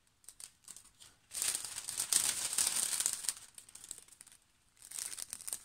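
Clear plastic cellophane packaging crinkling as it is handled, in two spells: a long one of about two seconds, then another starting near the end.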